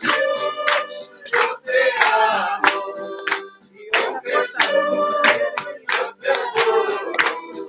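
A small group singing a worship song together and clapping along in a steady rhythm.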